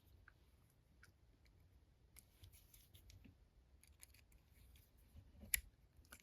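Faint metallic clicks and light scraping of a wire pick working inside a flat lever padlock, with one sharper click about five and a half seconds in.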